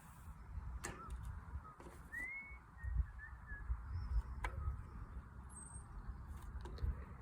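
Birds calling: short chirps and whistles, one a rising whistle about two seconds in. Two sharp clicks, about a second in and again midway, over a low rumble.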